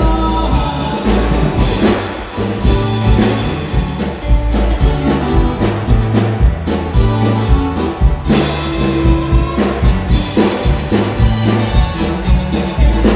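Live band playing a dance song, with drum kit, bass and keyboard, and a steady beat of drum hits under sustained bass notes.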